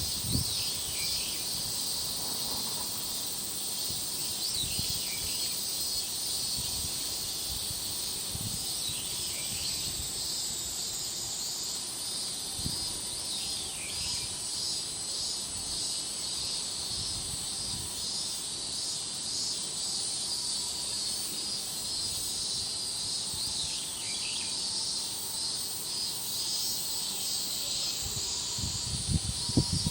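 Steady high-pitched trilling of a summer insect chorus, with low wind rumble buffeting the microphone. A few short downward-sliding bird calls come every several seconds.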